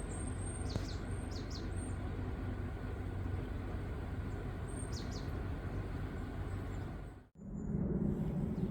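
Small birds chirping a few short falling calls over a steady low rumble of outdoor background noise. Near the end the background switches abruptly to a louder steady hum.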